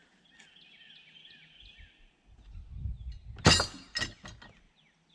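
An object left on the end of a sawmill falls off and clatters down: one loud sharp crash about three and a half seconds in, followed by two smaller knocks. Birds chirp in the first two seconds.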